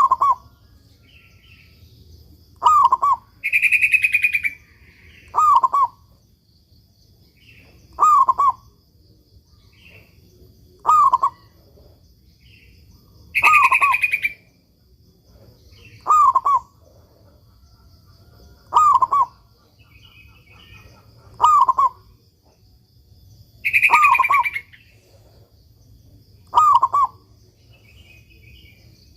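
Zebra dove (perkutut) singing its short cooing phrase over and over, about once every two to three seconds, with a louder, higher burst about every ten seconds.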